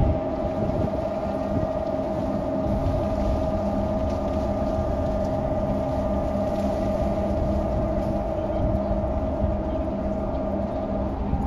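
A large car ferry's engines and thrusters running as it manoeuvres into its berth: a steady low rumble under a constant machinery hum, the hum dying away near the end.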